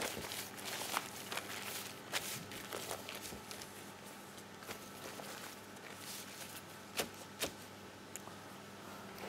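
Quiet kitchen handling sounds: apple pieces being pressed into a pastry-lined metal tart ring on a steel worktop and a butter wrapper being unfolded, with scattered light knocks and taps, two sharper ones close together near the end, over a faint steady hum.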